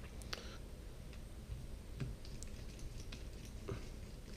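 Faint, scattered clicks and light taps as a smartphone and its small parts and tools are handled during a teardown.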